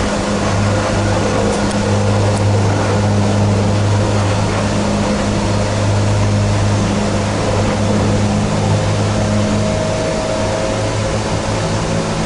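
Kinkisharyo light rail car running along the track, heard inside the passenger cabin: a loud, steady rumble with a strong low hum. About eight seconds in, part of the hum drops slightly in pitch and a higher tone joins it.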